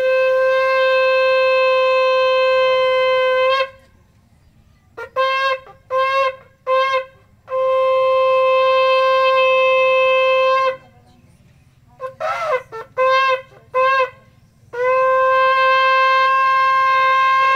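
Shofar blown: three long, steady blasts on one note, with a run of short blasts between each pair of long ones.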